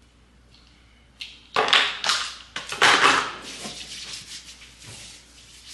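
Hands rubbing briskly together as hand cream is worked in: a run of loud, noisy swishing strokes starting about a second in, easing off toward the end.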